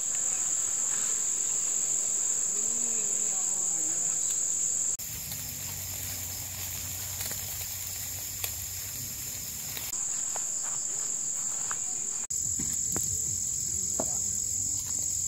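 Steady, high-pitched chirring of insects in a tropical campsite. From about five to ten seconds in it gives way to a softer broad hiss with a low rumble, then the insect sound returns.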